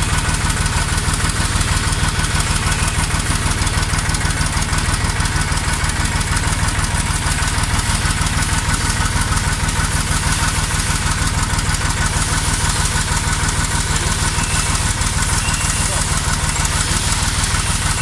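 Massey Ferguson tractor engine running steadily at an even speed.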